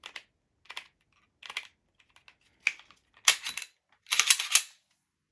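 Canik Mete SFT Pro pistol parts being handled during reassembly: a string of light metallic clicks and scrapes, with a louder cluster about three seconds in and a longer rattling scrape just after four seconds.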